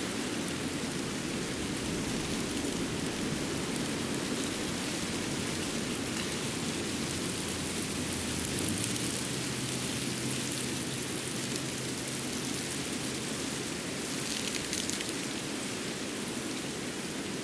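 Snowy winter forest ambience: a steady, even rain-like patter and hiss of dripping or falling water. A faint low hum joins it from about nine to fourteen seconds in, and a brief cluster of crisper patter comes about fourteen seconds in.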